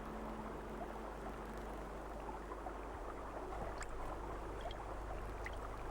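Steady water ambience of a mangrove creek, trickling and lapping, under a constant low hum, with a few faint clicks.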